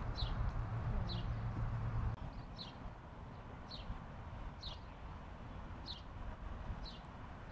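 A bird calling a short, high, falling chirp about once a second, over steady outdoor noise. A low hum is heard for the first two seconds and then stops.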